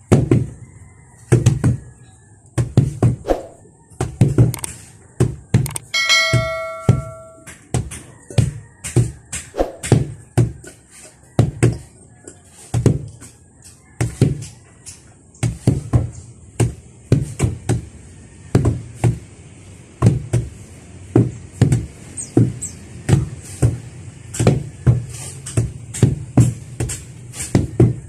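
Wooden hand tampers pounding loose soil, dull thuds from several men working out of step, about two a second. About six seconds in, a short ringing tone sounds for about a second and a half over the thuds.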